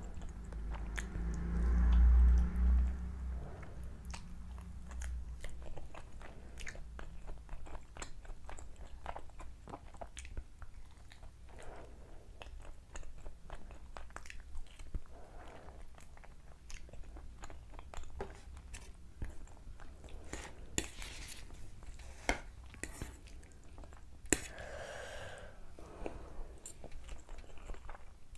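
Close-miked chewing and biting of fried chicken lollipop, with crunches and many small wet mouth clicks. There is a loud low thump about two seconds in, and near the end a slurp as noodles are sucked in.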